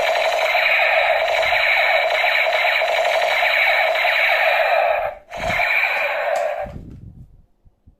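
Battery toy gun's electronic firing sound from its small speaker: a steady, rapid buzzing. It breaks off for a moment about five seconds in, starts again, and stops for good near the end.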